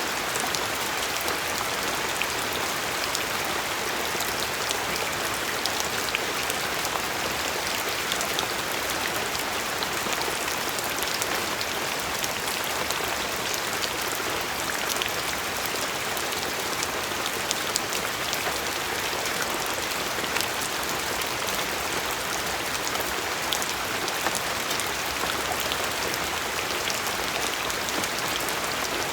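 Steady rain falling, a dense even patter with many small drop ticks and no change in intensity.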